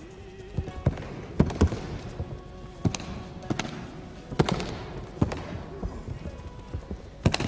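Bodies hitting tatami mats in aikido breakfalls as attackers are thrown, about ten sharp slaps at irregular intervals, each echoing in a large hall. Faint music runs underneath.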